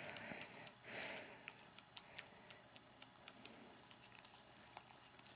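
Near silence with a brief soft rustle about a second in and a few faint scattered clicks: a dog quietly licking and nibbling at itself.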